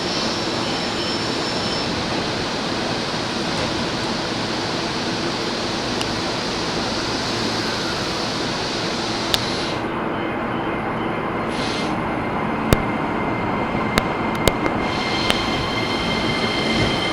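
JR electric commuter train running at a station platform: a steady rumble of wheels on rail. A few sharp clicks fall in the second half, and a thin high whine comes in near the end.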